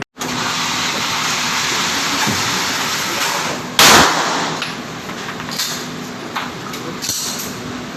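A single loud gunshot a little under halfway through, with a short echoing tail, over a steady rushing hiss; a few faint clicks follow.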